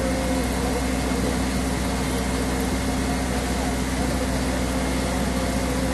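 A boat's engine running steadily, heard from on board: a constant low drone with a steady hum and no change in speed.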